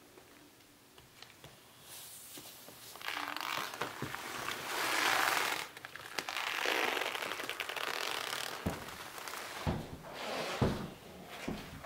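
Leather garments and thin leather gloves rustling and creaking with movement, in two long swells. Then four heavy thuds about a second apart, footfalls of heavy boots.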